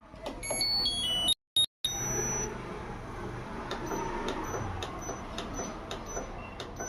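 A Whirlpool washing machine sounds a short tune of stepped electronic beeps. After a brief dropout it runs with a rumbling noise and regular clicks, about three a second. This is the gearbox or bearing noise that the machine is being checked for.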